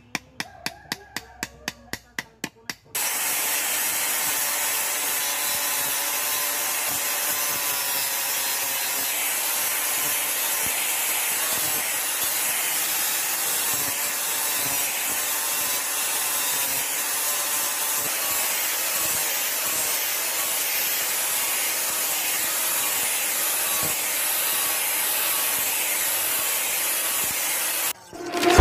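A hammer taps rapidly on a piece of wood, about four strikes a second, for the first few seconds. Then a handheld angle grinder runs steadily with its disc grinding into a wooden block, and stops suddenly near the end.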